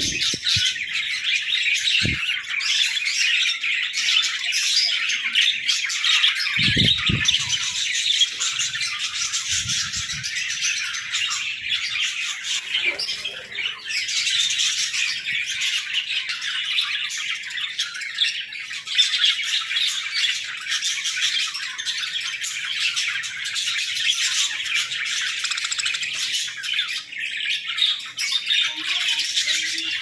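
A large flock of budgerigars chattering and chirping together in a dense, continuous warble. A few low thumps come in the first ten seconds.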